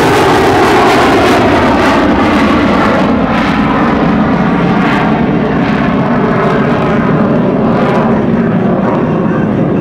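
Jet noise from a USAF Thunderbirds F-16C Block 52 Fighting Falcon's single Pratt & Whitney F100 turbofan as the jet climbs away overhead. It stays loud and steady while the high hiss fades from about three seconds in as the jet pulls away.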